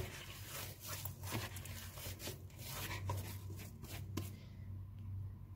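Hands kneading a soft dough of mashed potato and cooked semolina in a plate: soft, irregular squishing and rubbing strokes, which thin out about four seconds in, over a faint low hum.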